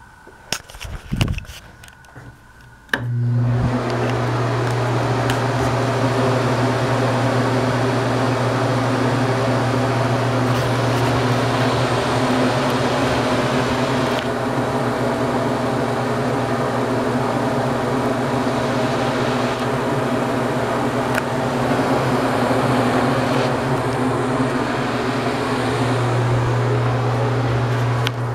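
NuTone ceiling bathroom exhaust fan starting suddenly about three seconds in, after a few clicks, then running steadily with a low motor hum and a rush of air.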